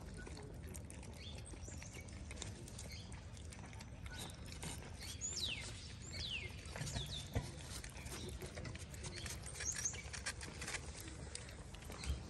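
Several cats eating wet cat food from plastic trays close up: a steady run of small smacking and chewing clicks.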